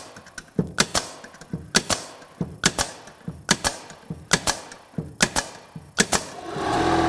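A pneumatic 16-gauge finish nailer fires nails into wood seven times, each shot a sharp double clack about once a second. Near the end, the Metabo HPT EC36DAQ4 36V brushless oil-free compressor motor kicks on and runs with a steady hum, refilling its 2-gallon tank after the shots have drawn the pressure down.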